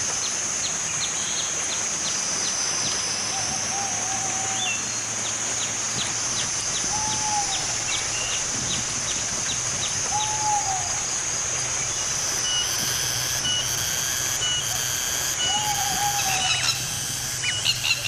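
Outdoor nature ambience: a steady high insect drone with rapid ticking chirps, and a few short bird calls spread through. Past the middle, a short high note starts repeating about once a second.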